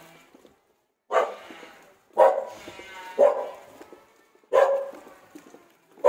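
A dog barking repeatedly, about one bark a second. These are warning barks from a dog that seems ready to rush at the people passing.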